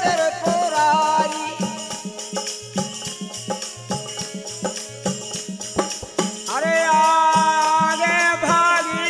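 Tamura bhajan, Bundeli devotional folk music: a melody line over a steady beat of jingling hand percussion. The melody thins out in the middle and swells back with a long held note about six and a half seconds in.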